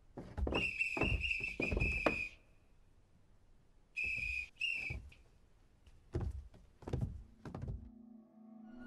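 Cartoon sound effects: a high, steady squeak held for about two seconds over wooden knocks about twice a second, then two short squeaks, then three separate thumps. A low, eerie music drone starts near the end.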